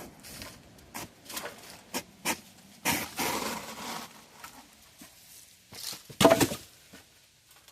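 Digging through garden soil and roots: a series of irregular scraping and rustling bursts, a longer rough scrape about three seconds in, and the loudest burst about six seconds in.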